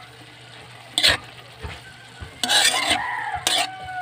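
Metal spoon scraping and stirring shredded green papaya in a metal cooking pan: one scrape about a second in, then a longer run of stirring scrapes in the second half.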